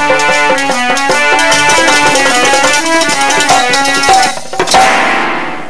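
Harmonium and dholak playing the instrumental close of a devotional kirtan song, held reed chords over a steady drum rhythm. The music ends with a last loud strike about five seconds in that rings away.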